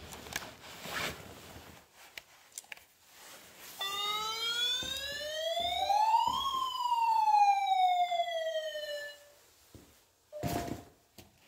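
An electronic siren tone whoops once, rising steadily for about two and a half seconds and falling back for about three, after a few faint clicks.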